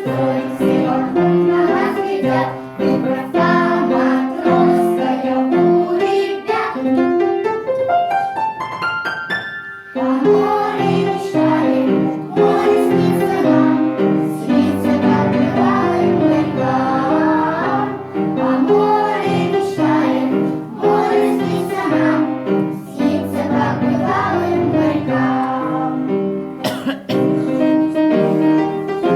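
Music: a song with singing over keyboard accompaniment. About eight seconds in, a quick rising run of notes climbs and breaks off, then the fuller music comes back in with a deep bass.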